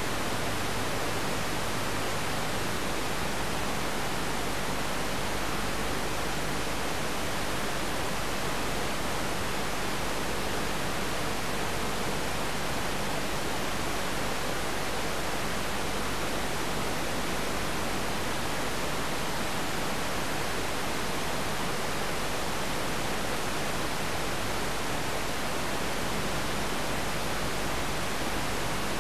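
Steady static hiss from an analog TV receiver's sound channel, with a faint low hum beneath it. The sound is mistuned, so the programme's audio is missing and only noise comes through.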